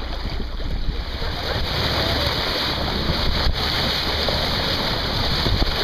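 Steady rush of sea water washing past a moving boat's hull, with wind buffeting the microphone.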